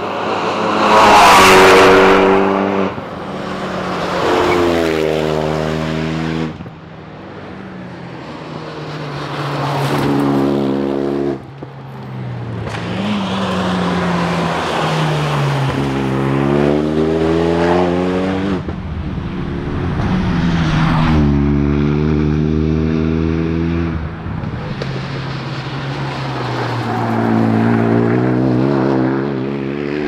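Renault Mégane RS 250's turbocharged four-cylinder engine revving hard as the rally car drives past at speed, several times over. The pitch climbs through each gear and drops back at the shifts and on braking, swelling loud as the car passes.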